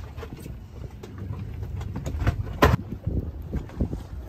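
Low, steady wind and water rumble on a small fishing boat, with small clicks from handling the fish and tackle and one sharp knock about two and a half seconds in.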